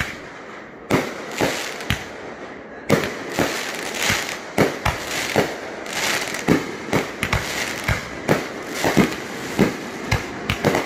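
A multi-shot aerial firework cake firing from the ground, its shots bursting overhead as a run of sharp bangs. The bangs come a couple a second at first, then more quickly from about three seconds in.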